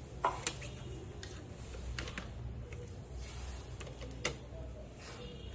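Scattered light clicks and taps, about half a dozen at irregular intervals, the sharpest two near the start, over a steady low hum.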